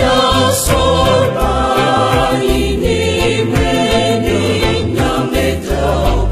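Choir singing a Fante-language Catholic hymn over instrumental accompaniment with a steady, repeating bass line.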